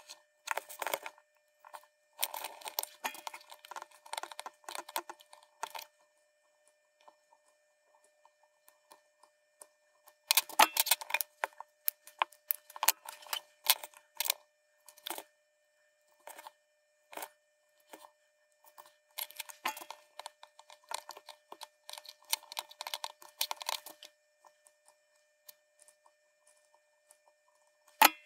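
Fine metallic clicking and rustling of through-hole LEDs' thin wire leads being handled and pushed into a circuit board. It comes in three bursts with quiet gaps between, and one sharp click near the end.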